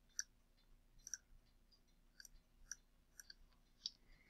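A few faint computer mouse clicks, irregularly spaced, over near silence.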